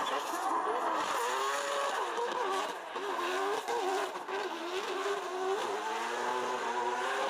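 Nissan GT-R drift car's engine revving up and down, rising and falling again and again as it slides sideways, with its tyres squealing.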